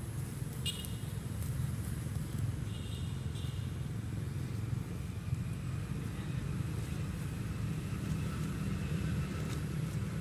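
Steady low rumble of outdoor background noise, with a few short, faint, high chirps about a second in and again around three seconds in.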